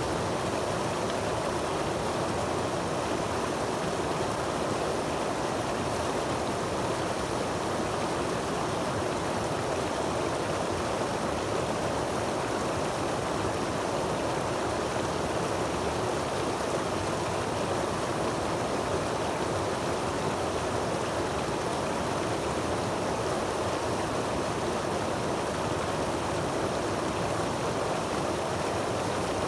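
Creek water rushing steadily down a short cascade over rocks into a pool.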